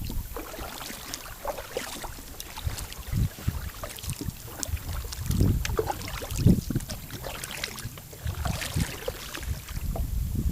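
Kayak being paddled: irregular paddle strokes splashing in the water, with occasional low thumps.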